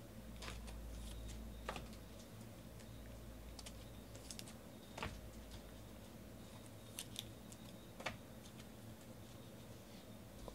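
Faint, scattered light clicks and taps of trading cards and their plastic holders being handled and set down on a table, with a few sharper taps among them.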